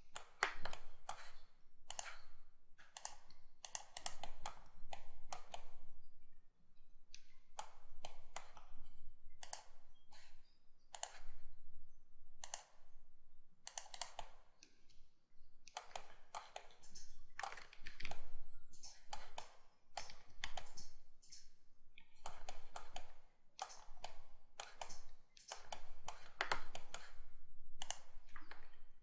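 Computer mouse and keyboard clicking: short, sharp clicks in irregular small clusters, made while selecting and welding vertices in 3D-modelling software.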